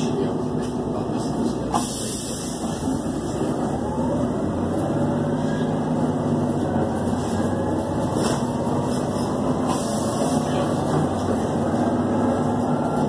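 City bus interior on the move: steady engine hum and road noise, with a few brief rattles. The engine hum gets louder about four seconds in.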